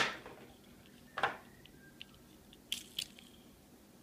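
Hot Wheels blister packaging crunching and clicking as it is handled, with a sharp crunch at the start, another about a second in, and a few light clicks near the end.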